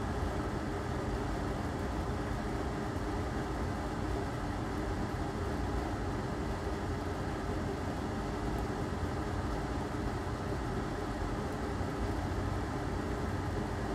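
Steady machine hum with a low drone that does not change.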